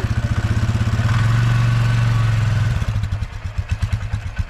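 Polaris quad bike (ATV) engine being ridden. The throttle opens about a second in into a steady, louder pull, then eases off near three seconds back to an uneven, lumpy running.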